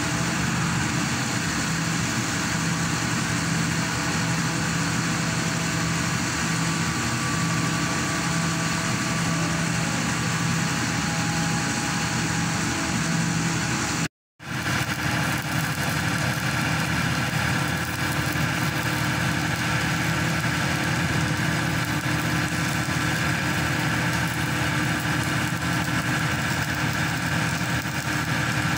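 Diesel engine and hydraulic power pack of a hydraulic static pile driver running steadily, a constant mechanical drone with a steady hum. The sound cuts out for about half a second near the middle, then carries on unchanged.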